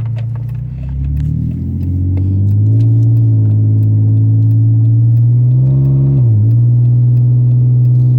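Dodge Magnum SXT's 3.5-litre V6 engine running while the car is driven: the engine note rises about two seconds in, dips briefly just after six seconds, and otherwise holds steady.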